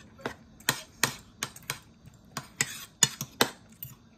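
Metal spoon and fork clinking and scraping against a plate while eating, in a quick, irregular run of sharp clicks.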